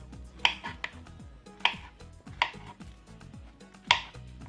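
Knife cutting ripe plantain on a cutting board: a few separate, unevenly spaced knocks of the blade on the board, the loudest near the end.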